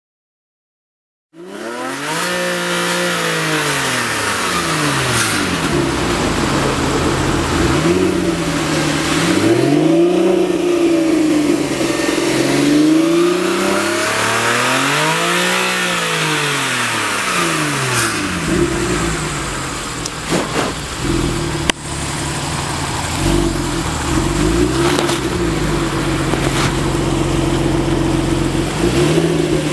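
Porsche Boxster Spyder's flat-six engine starting about a second and a half in, then revved repeatedly, the pitch rising and falling in several blips before settling to a steadier fast idle. The engine is cold and the sound is not a good one. There are a couple of sharp knocks in the middle.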